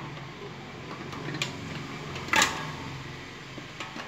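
Metal wire tongs clinking against a stainless steel pot while plastic baby toys are moved about in the water: a light clink, then a sharper, louder clink with a brief ring about two and a half seconds in.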